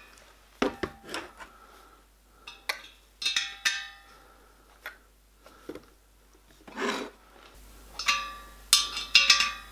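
Metallic clinks and knocks as a small steel angle bracket is set down and shifted by hand on a copper locomotive boiler plate, some knocks ringing briefly. They come in scattered clusters, the loudest and busiest near the end.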